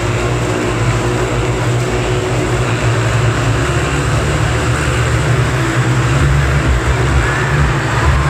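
Several motorcycles circling inside a steel-mesh globe of death, their engines running hard in one steady, continuous drone.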